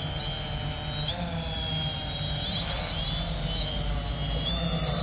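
Multirotor drone's propellers and motors running close by, a steady hum with a higher whine above it, their pitch shifting up and down several times as the drone manoeuvres.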